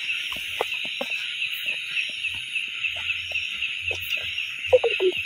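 Steady high-pitched chorus of night insects, a rapid pulsing trill, over scattered short rustles and crackles of footsteps through ground litter, with a few louder ones near the end.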